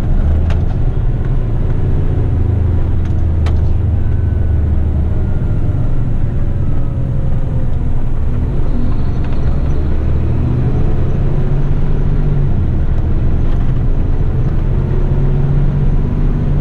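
Heavy rigid truck's diesel engine running steadily with road rumble, a low drone that shifts slightly in pitch. A few faint clicks sound in the first few seconds.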